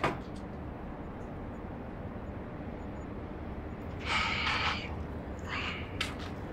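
Steady low outdoor background rumble, with two short hissy rushes of noise about four and five and a half seconds in.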